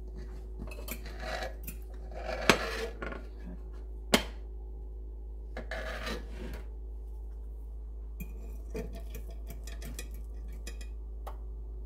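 Plastic knife cutting cornbread in a cast-iron skillet, the blade scraping against the pan in several short strokes, with two sharp knocks about two and a half and four seconds in as it strikes the iron.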